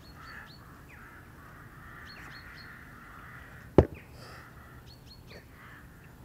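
Small birds chirping in quick clusters of three or four short, high, falling notes, repeated several times. A single sharp crack a little after halfway through is the loudest sound.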